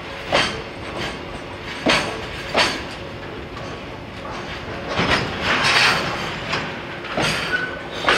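Container wagons of a freight train rolling past, wheels clacking over rail joints, the strikes often coming in pairs, over steady rolling noise. The rolling noise swells briefly a little after halfway.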